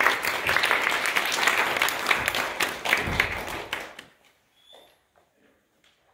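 Audience applauding, dying away about four seconds in, leaving only a few faint small noises.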